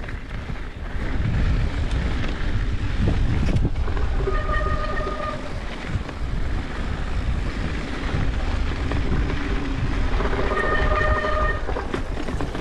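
Continuous rumble of riding a mountain bike, with wind buffeting the microphone. Twice, about four and ten seconds in, a steady high squeal rings out for about a second.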